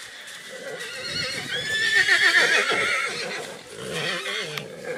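Black Forest draft horse whinnying: a loud, long, quavering neigh about a second in, followed by a shorter call near the end.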